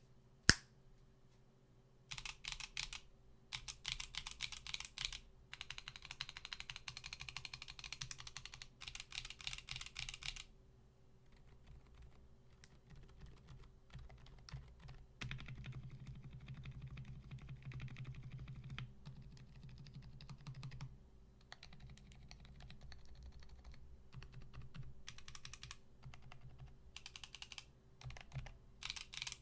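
Typing on a mechanical keyboard fitted with Haimu Heartbeat silent linear switches: quiet, damped keystrokes in runs of a few seconds, with short pauses between them. A single sharp click comes about half a second in, and a faint steady hum lies underneath.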